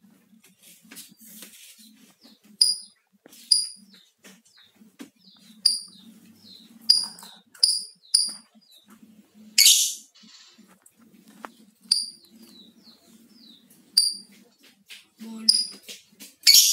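Lovebird calling loudly in sharp, high-pitched chirps, about one a second with short pauses. Two louder harsh, rasping bursts come about ten seconds in and near the end.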